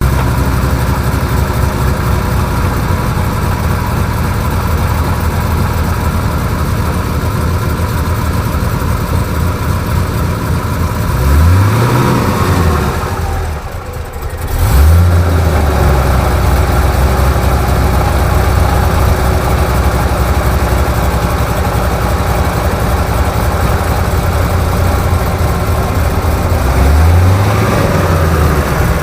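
Ford Mustang GT's 4.6-litre V8 idling with a rattle, blipped twice: once near the middle and again near the end, the pitch rising and falling each time. Right after the first blip the engine sound briefly drops away before it picks up again.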